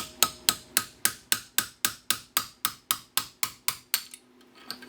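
Hammer striking a steel punch to drive the old spacer and bushing out of a John Deere mower deck spindle: rapid, evenly spaced metallic strikes, about four a second, stopping a little under four seconds in.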